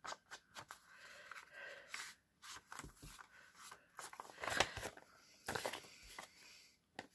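Soft scrubbing and rustling as a foam ink-blending tool is rubbed along the edges of a paper envelope and dabbed on an ink pad, with paper handling and a few sharper taps about halfway through.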